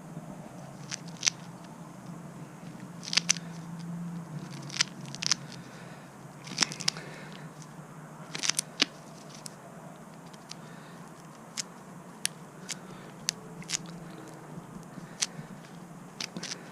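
Irregular sharp clicks and crackles of hands working a tire plug repair kit, preparing a sticky rubber plug for insertion into a punctured tire. A low steady hum runs underneath.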